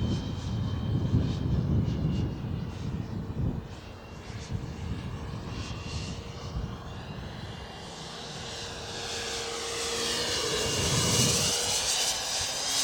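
Electric ducted fan of an HSD SuperViper RC jet (12S EDF) whining in flight. The whine grows louder from about eight seconds in as the jet comes past, with its pitch dipping and rising again.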